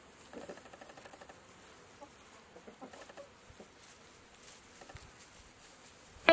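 Faint, scattered short animal calls over a low hiss.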